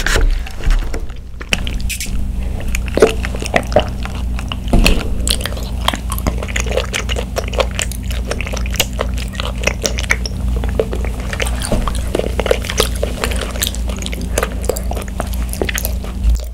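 Plastic straw being stirred and jabbed in a sealed plastic cup of bubble tea, a dense run of irregular clicks and crackles.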